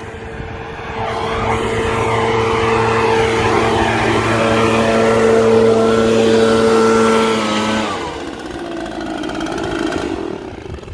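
Echo PB-770 backpack leaf blower's two-stroke engine running at a steady high speed, sounding strong, then cut back about eight seconds in, its fan winding down.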